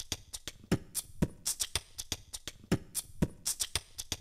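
Electronic drum beat: pairs of deep kick drums half a second apart, repeating every two seconds, with crisp hi-hat and snare hits between them.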